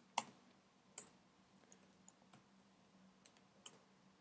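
Faint computer keyboard keystrokes: a few separate clicks, roughly a second apart.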